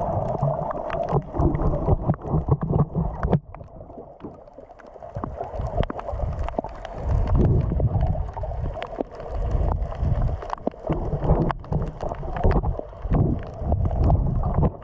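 Muffled underwater sound of sea water moving around a submerged camera in shallow water: a low sloshing rumble scattered with sharp clicks and crackles. It drops quieter for a couple of seconds about three seconds in.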